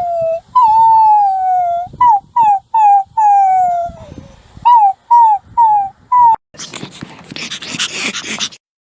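Puppy whining and howling: a run of short, high yelps, each falling in pitch, with two longer drawn-out falling whines among them. About six and a half seconds in, the calls stop and a quieter two-second burst of harsh, rustling noise follows.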